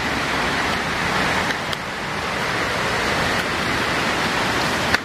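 Steady rushing of a waterfall, with a couple of brief clicks, the sharper one near the end.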